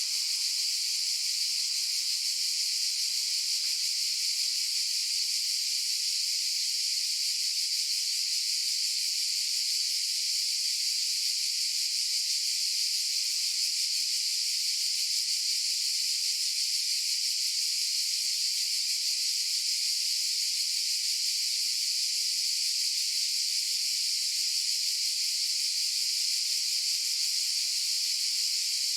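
Chorus of cicadas droning in one continuous, unbroken high-pitched buzz that holds an even level throughout.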